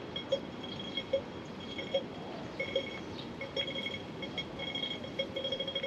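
Pedestrian crossing signal at a street junction: slow ticking beeps, about one every 0.8 seconds, switching about halfway through to rapid ticking, the signal that it is time to cross. Steady street hiss runs beneath.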